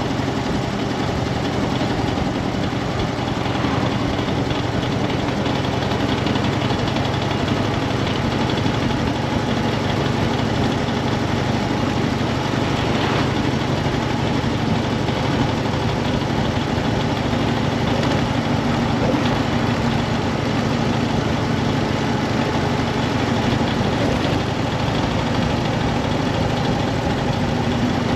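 Harley-Davidson FXDF Dyna Fat Bob's V-twin engine running steadily.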